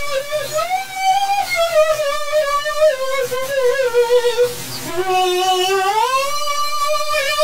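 Commercial background music processed with a warped VHS-tape effect: one held melody line with a fast wobble in pitch. It slides slowly down, then rises again about two-thirds of the way through and holds.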